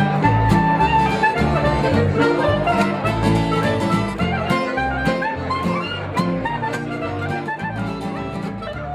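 Acoustic guitar strummed and picked, with a clarinet playing the melody above it in a jazzy folk tune; the music slowly fades out over the last few seconds.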